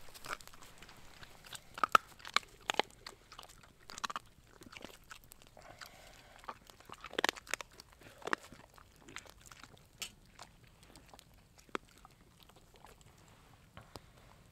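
Dog chewing and crunching on food, a string of irregular crunches and sharp clicks.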